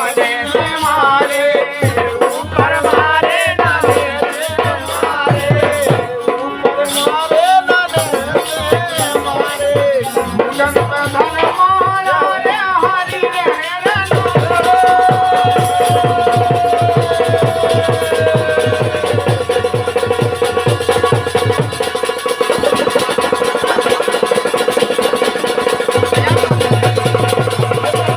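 Bundelkhandi Rai folk music without singing: a melody over steady rattling percussion and drum. About halfway through, the wavering, bending melody gives way to long held notes.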